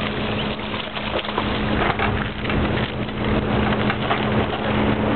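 Water splashing and lapping against the jetty rocks, a crackly hiss full of small splashes, with the steady low hum of a boat motor underneath.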